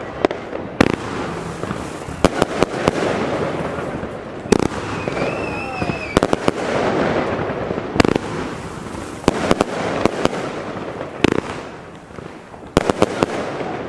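Argento Bellissimo fan-effect firework cake firing: sharp shots going off in quick irregular clusters over a steady hiss of the rising effects. A short wavering whistle sounds about midway.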